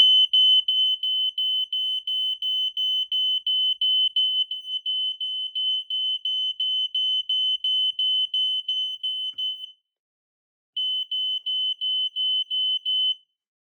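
Smoke alarm sounding: rapid high-pitched beeps on one tone, about four a second. The beeping breaks off for about a second and starts again, then stops shortly before the end.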